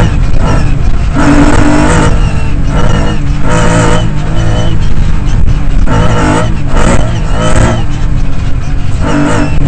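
Lancia Stratos rally car engine heard from inside the cockpit at full power, its revs climbing and dropping again and again as the car accelerates along the stage.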